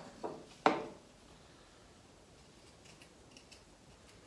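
Two short clacks about half a second apart, of things being set down and handled on the steel top of a table saw, then only faint handling ticks.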